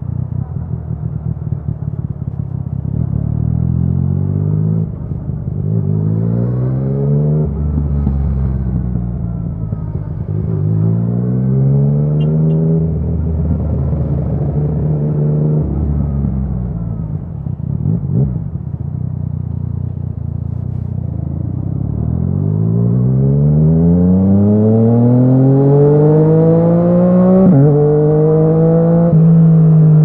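Yamaha MT-09's three-cylinder engine through an Akrapovic exhaust, accelerating through the gears while riding. The pitch climbs and drops back at each upshift several times, with the longest, loudest pull in the last few seconds.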